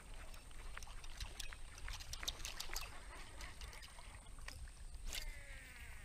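Faint irregular clicks and light water noise from lure-fishing in a wooden canoe, as a lure is cast and retrieved. A short falling whistle comes about five seconds in.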